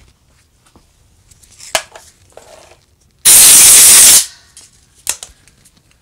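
A loud hiss of pressurised spray from a nozzle, lasting about a second, near the middle, during carburetor cleaning. Before it come a few light clicks of small carburetor parts being handled.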